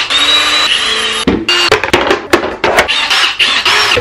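Cordless drill driving screws into the panels of a flat-pack shelf: a steady motor whine for about the first second, then a quick series of sharp clicks and knocks.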